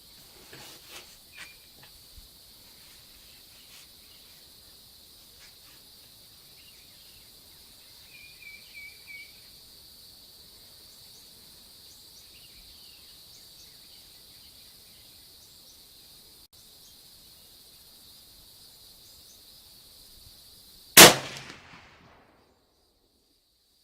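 A single rifle shot from an SKS firing 7.62×39 mm steel-cased ammunition comes late, sharp and loud, with its echo dying away over about a second. Before it there is a long quiet stretch of steady insect buzz with a few light clicks and a brief run of chirps.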